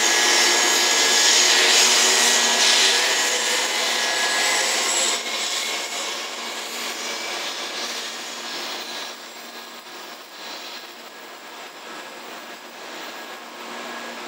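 700-series Rail Star shinkansen pulling out of the platform, its running noise carrying a steady whine. It drops sharply about five seconds in as the last car clears, then fades to a low hum.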